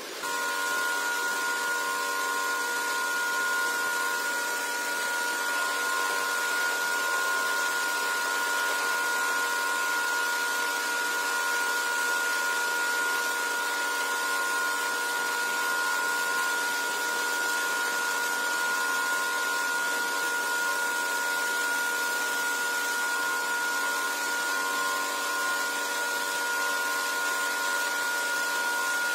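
Wet vacuum motor running steadily with an even, high whine.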